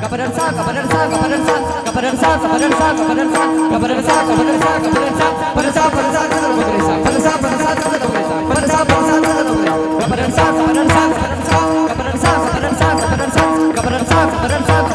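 Devotional kirtan music without singing: a steady held drone with a melody over it and a regular beat of drum and small cymbal or rattle strokes.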